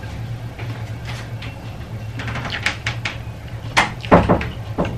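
Eating sounds: scattered short clicks and smacks, bunched about two seconds in and again near four seconds, over a steady low hum.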